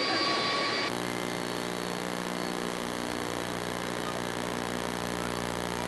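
Jet airliner engine noise with a steady whine breaks off suddenly about a second in. A steady electrical buzzing hum with many overtones, over hiss, follows: the hum comes from a faulty camcorder microphone.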